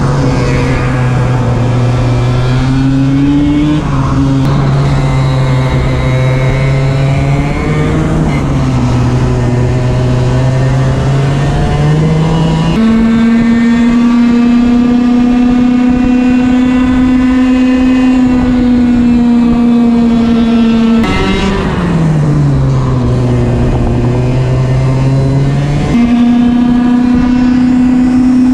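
Racing kart's two-stroke engine at high revs, heard from on board the kart. The pitch holds steady on the straights, dips and climbs again through the corners, and jumps suddenly several times.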